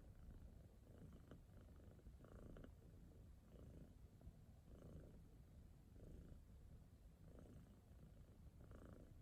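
Domestic cat purring quietly and continuously, the purr swelling and fading with each breath about once a second.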